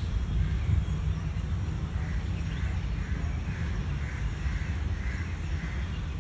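A bird calling over and over, short calls about twice a second through the second half, over a steady low rumble.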